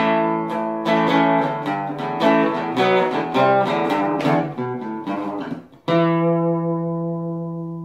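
Guitar music, likely acoustic: a run of plucked notes, then one final chord struck about six seconds in and left ringing.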